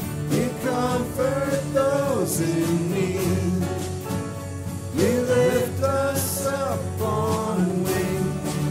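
Contemporary worship song: a lead voice sings melodic phrases over steady band accompaniment.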